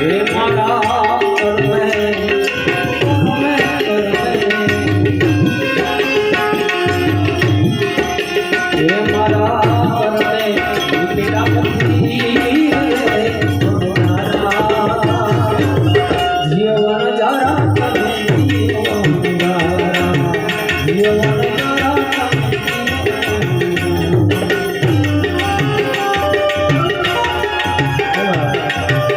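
Instrumental interlude of a Gujarati santvani devotional song: tabla keeping a steady rhythm under a melody line played on an instrument, with no singing.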